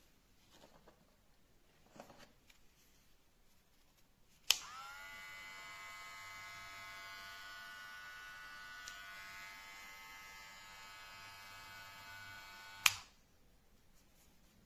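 GLAKER electric hair clipper switched on with a click about four seconds in. Its motor spins up and runs with a steady hum, then is switched off with a click near the end.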